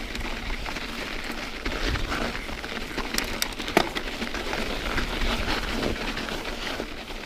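Bicycle tyres rolling over packed snow: a steady crackling crunch, with scattered clicks and rattles from the bike.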